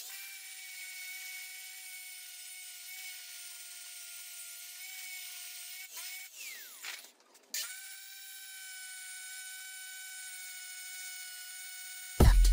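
Small electric motor of a homemade drill running with a steady high whine. About six seconds in, the whine breaks for a second or so into a scraping noise with a falling pitch, then resumes steadily. Loud electronic music with a beat cuts in at the very end.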